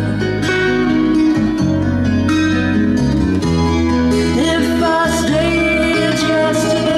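Music playing back through Linn Sara Isobarik loudspeakers driven by a Marantz 250 stereo power amplifier, with a bass line of held notes that change every half second to a second.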